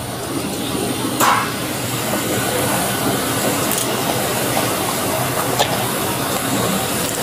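Steady loud rushing hiss of airport ground noise on a jet bridge beside a parked airliner, with one sharp click about a second in and a fainter one later.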